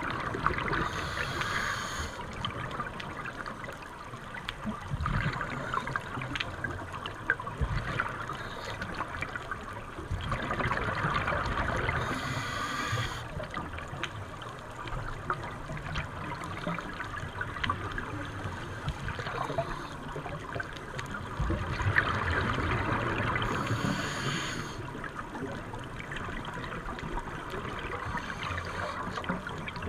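A scuba diver's regulator breathing, recorded underwater: three slow breaths about eleven seconds apart, each a short hiss with a stretch of bubbling. A steady fine crackling runs underneath.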